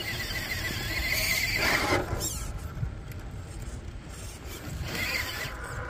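Redcat Ascent RC rock crawler's electric motor and drivetrain whining under throttle. The high whine wavers in pitch over the first two seconds and comes back briefly about five seconds in.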